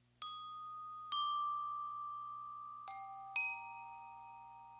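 A short musical chime of four struck bell-like notes, each ringing out and slowly fading; the first two are a second apart, the last two close together near the middle.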